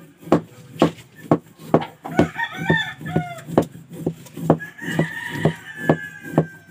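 Serrated knife shaving and chopping a hard block of sangkaka (raw cane-sugar block) on a plastic tray, about two scraping strokes a second. A chicken clucks in the middle and a rooster crows in one long call near the end.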